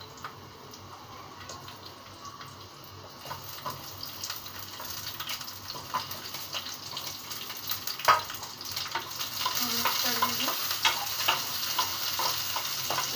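Roughly chopped onions hitting hot oil in a kadhai and starting to sizzle about three seconds in, the frying hiss growing louder, with scattered clicks of pieces and utensils against the pan.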